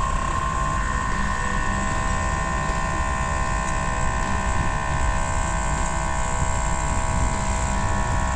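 Arnott air-ride kit's high-output compressor on a Harley-Davidson Street Glide running with a steady whine as the air suspension is pumped up, over a low rumble. It cuts out near the end.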